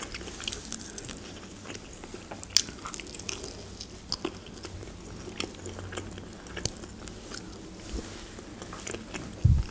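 Close-miked eating of grilled chicken: biting and chewing with scattered small wet clicks and smacks of the mouth. A short low thump comes near the end.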